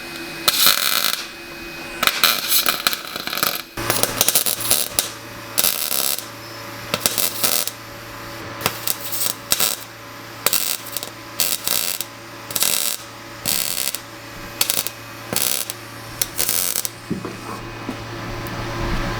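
Welder tack-welding a replacement sill panel on a car body: many short spells of arc noise, one after another with brief pauses between them. A steady low hum joins in about four seconds in.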